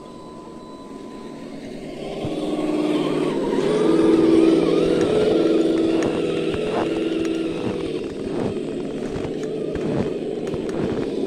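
Electric motors and gear drivetrains of 1/8-scale RC crawler trucks whining as they drive through deep snow. The whine grows louder about two seconds in and shifts in pitch with the throttle, with scattered clicks near the end.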